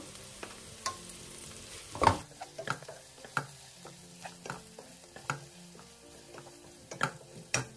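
A wooden spatula stirs and scrapes onions and turmeric powder frying in a non-stick pot, over a light sizzle. Scattered short knocks and scrapes come as the spatula strikes the pan, the loudest about two seconds in.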